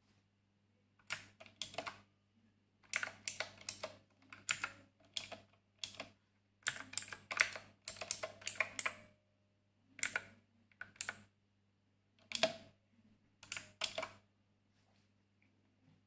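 Redragon Ida one-handed mechanical keyboard with clicky Outemu Blue switches being typed on: sharp key clicks in short runs with pauses between, starting about a second in and stopping a couple of seconds before the end.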